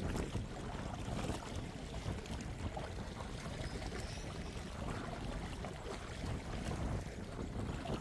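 Sea water sloshing and lapping in a steady wash, with a low rumble of wind on the microphone.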